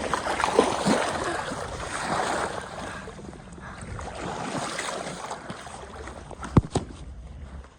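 Moving water sloshing and splashing, loudest in the first three seconds and then fading, with one sharp knock about six and a half seconds in.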